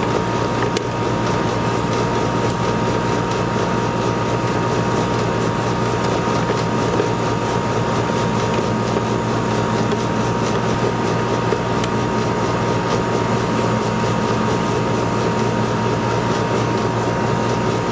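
Outdoor air-conditioner unit running, a steady hum and fan noise with a constant high whine over it.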